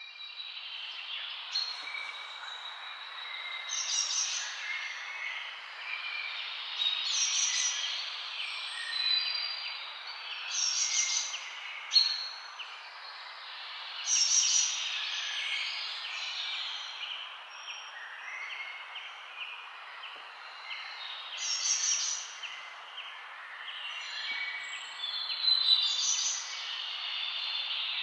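Songbirds chirping and singing, many overlapping calls with a louder song phrase recurring every three to four seconds, over a steady background hiss. The sound fades in at the start.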